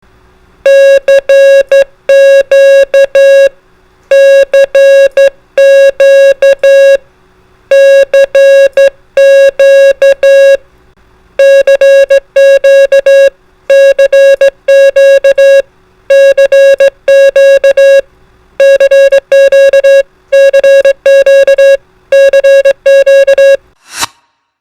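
Morse code (CW) sent as a loud, steady, slightly buzzy beeping tone, keyed in rapid dots and dashes in repeated groups with short pauses between them, over a faint soft music bed. A brief click near the end.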